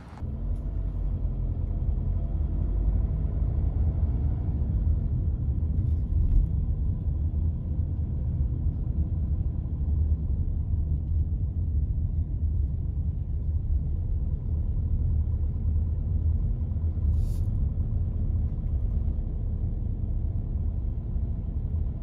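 Low, steady rumble of a car's engine and tyres heard from inside the cabin as the car pulls away and drives on. The engine note rises over the first few seconds.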